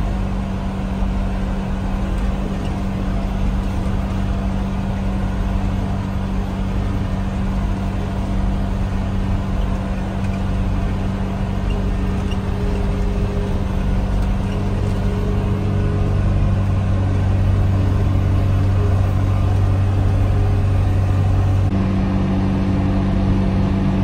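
John Deere tractor engine running steadily under load while mowing alfalfa, heard from inside the cab as a constant low drone.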